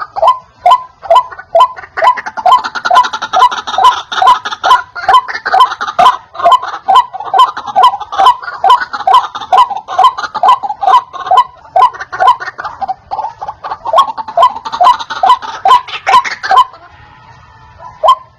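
White-breasted waterhen call played as a lure for wild waterhens: a loud, rapid string of repeated croaking notes, about two or three a second. The notes break off for about a second near the end, then start again.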